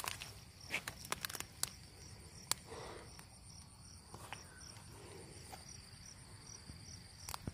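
Insects chirping in a steady, even pulse, about two to three chirps a second. A few sharp clicks and rustles come over it, mostly in the first three seconds and once near the end.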